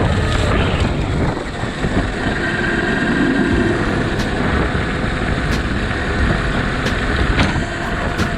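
Radio-controlled electric cars driving: a steady electric motor and gear whine over a heavy rumble of tyres on rough ground, with a few sharp knocks in the second half.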